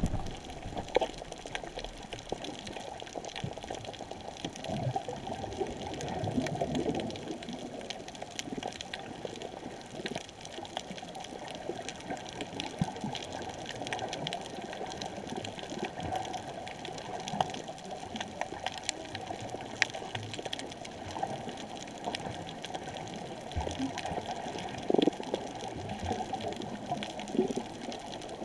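Underwater ambience: a steady low rush of water with scattered clicks and crackles throughout, and a brief louder bump near the end.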